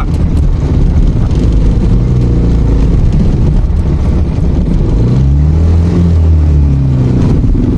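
Vehicle driving slowly over a rough gravel road: a loud, steady engine and road rumble. Around five to seven seconds in, the engine note rises and then falls again.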